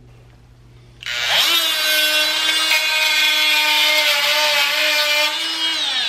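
Dremel Multi-Max MM45 oscillating multi-tool switched on at speed 10 about a second in, its pitch rising as it spins up, then running at a steady high whine while its wood-and-metal blade cuts a 12d steel nail flush. Near the end the whine falls in pitch as the tool winds down.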